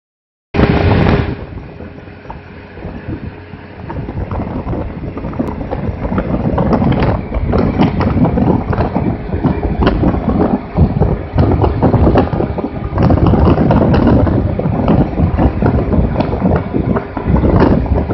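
Wind rushing and buffeting over the microphone of a Honda Zuma 125 scooter riding at road speed, gusty and uneven. It opens with a brief loud rush, dips for a couple of seconds, then builds from about four seconds in and stays loud.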